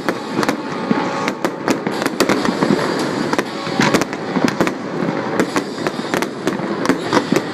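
Fireworks going off: a rapid, irregular run of sharp bangs and crackles, several a second.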